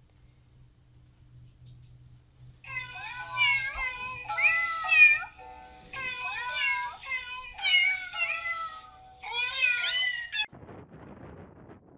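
A domestic cat meowing, mixed with music, in a run of gliding phrases. It starts about three seconds in and cuts off abruptly near the end.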